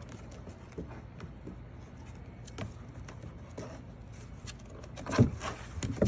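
A puppy's paws and claws tapping and scraping on a plastic toddler slide, with scattered light taps and one louder knock about five seconds in.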